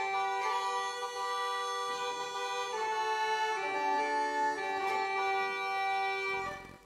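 Uilleann pipes playing a tune over their steady drones, the melody moving from note to note above the held tones. The pipes cut off abruptly near the end as the tune finishes.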